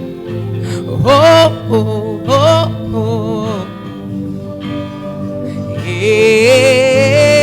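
Gospel song: a singer's long held notes with vibrato over a sustained instrumental backing with guitar.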